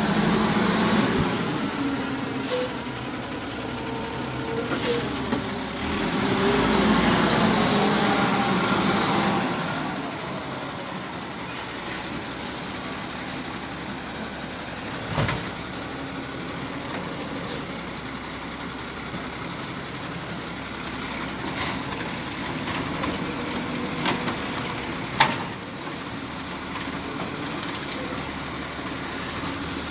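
Automated side-loader garbage truck running, louder for the first ten seconds with a high whine that rises and falls, then running steadily at a lower level with a thin high whine. Two short, sharp sounds stand out, about fifteen and twenty-five seconds in.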